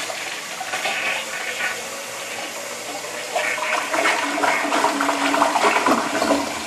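A 1958 forward-trap toilet, thought to be a Briggs, flushing at full flush: water rushes and gurgles through the bowl in a strong, swirling flush.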